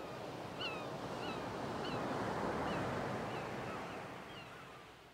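Sea surf washing on a shore, swelling and then fading out toward the end, with a short bird call repeating about every half second to second.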